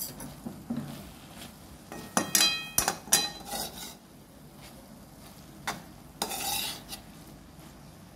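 Steel spoon stirring and scraping soaked poha (flattened rice) around a metal kadai, in slow, irregular strokes. About two seconds in, a cluster of ringing metal clinks as the spoon knocks against the pan.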